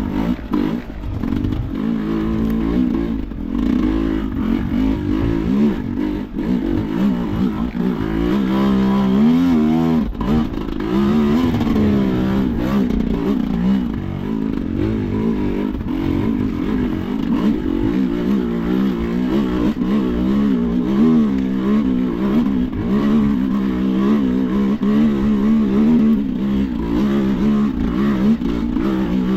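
Sherco enduro motorcycle engine being ridden off-road, revving up and down continuously, its pitch rising and falling every second or so with no steady stretch.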